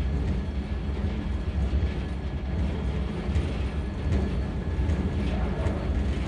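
Steady low machinery rumble with a faint scattered rattle, the running sound of a train and its loading crane.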